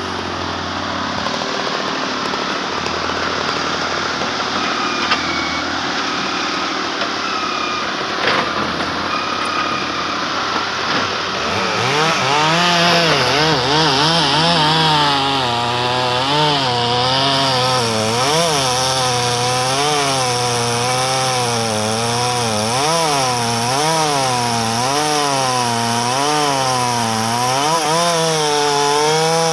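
Husqvarna chainsaw cutting through a large tualang log. The engine runs fairly steadily at first, then from about halfway its pitch rises and falls about once a second as it works the cut.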